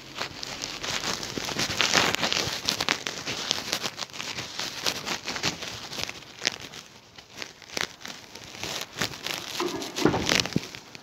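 Rustling and crackling handling noise of fingers and fabric rubbing against a handheld phone's microphone, in dense irregular clicks that grow louder about two seconds in and again near the end.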